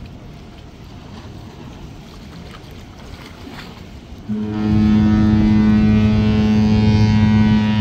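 Mein Schiff 4 cruise ship's horn giving one long, steady, deep blast that starts suddenly about four seconds in, over low wind noise.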